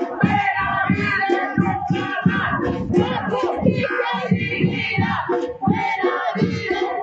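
Demonstrators' voices chanting and shouting together, several voices overlapping.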